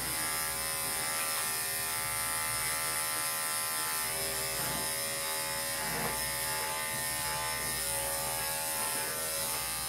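Corded electric grooming clippers buzzing steadily as they shave a dog's coat.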